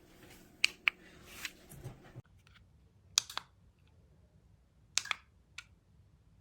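Sharp clicks, mostly in close pairs, a second or two apart, over a faint background. A low steady hum cuts off abruptly about two seconds in.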